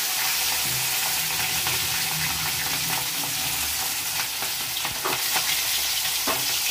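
Whole bata fish frying in hot oil in a kadai, just put in: a steady sizzling hiss with scattered crackles and pops.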